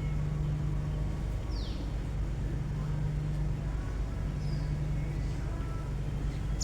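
A songbird gives a few brief, faint downward-sweeping chirps, spaced seconds apart, over a steady low hum.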